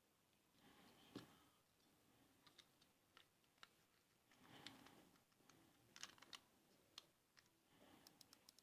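Faint, scattered clicks and handling of a computer mouse, with a quick run of about six clicks near the end.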